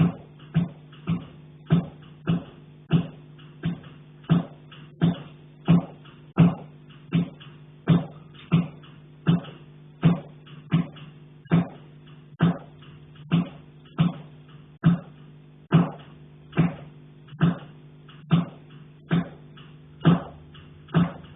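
Steady, rhythmic knocking on a pipe, about one knock every 0.8 seconds, each strike ringing briefly with a low tone.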